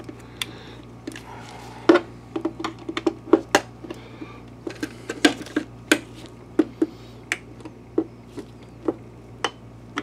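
Irregular sharp plastic clicks and taps, a couple a second, as a gloved hand presses and works the lamp door's clips back into the projector's plastic housing.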